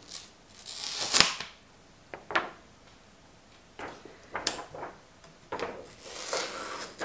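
Makeup being handled: an eyeshadow palette and brush rubbing, scraping and knocking in short irregular bursts, with a sharp click about a second in.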